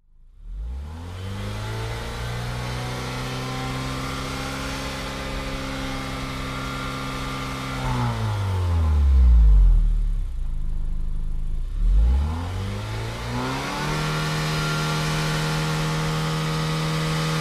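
Engine-like intro sound effect: a steady engine drone that glides down in pitch about eight seconds in, then revs back up and holds steady.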